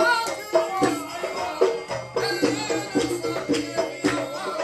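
Background music with a melody over rhythmic, shaker-like percussion.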